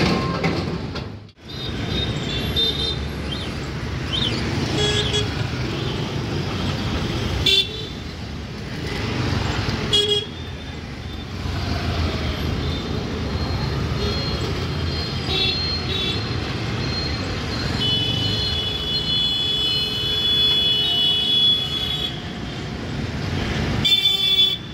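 Mixed road traffic of motorcycles, scooters and cars running across a level crossing, with repeated short horn toots and one long horn blast past the middle.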